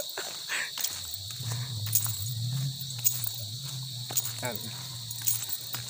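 Steady high-pitched chorus of insects, with a low wavering drone coming in about a second in.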